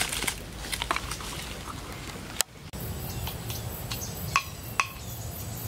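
Fresh chili peppers and their leafy stems rustling and crackling as hands pick through them in a metal pot. A sudden cut a little over two seconds in gives way to outdoor background with a few sharp clicks.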